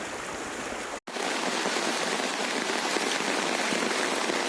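Steady hiss of rushing water, heavy rain or flood flow. It cuts out abruptly for an instant about a second in, then comes back slightly louder.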